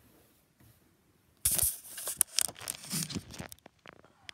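Rustling, crackling handling noise with scattered sharp clicks and knocks, starting about a second and a half in, as the phone filming is picked up and repositioned in front of the sewing machine.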